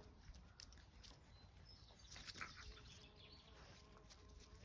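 Near silence: faint outdoor ambience, with a few soft ticks about two seconds in.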